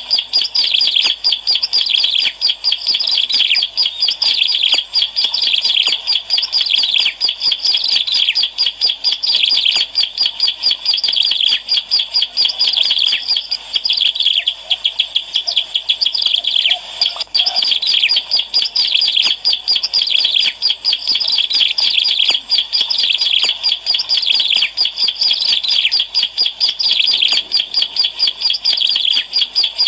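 Ciblek alang-alang, a small prinia, singing a rapid, unbroken run of high chirps and trills.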